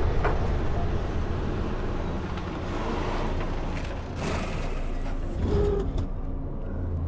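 Car engine running with a steady low rumble as the old sedan rolls onto the rail tracks, with a few knocks about four seconds in and a brief creak a little later.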